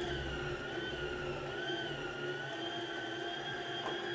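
Yonanas Elite frozen treat maker's motor running, grinding frozen bananas and dark chocolate as they are pressed down the chute with the plunger: a steady whine whose pitch wavers slightly under the load.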